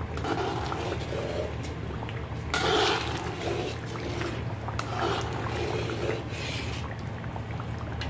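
Chili garlic oil bubbling in a wok as a spatula stirs it, with a louder swish every second or two (the loudest about three seconds in), over a steady low hum.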